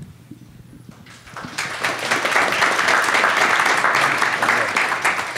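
Audience applauding: many hands clapping together, swelling in about a second in, holding loud, and beginning to taper off near the end.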